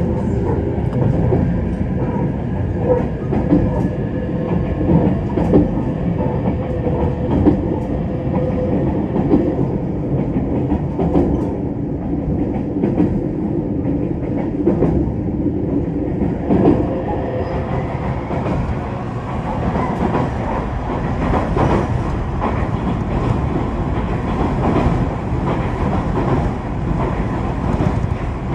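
A local train running along the line, heard from inside the carriage: a steady rumble with irregular knocks as the wheels clatter over rail joints (gatan-goton).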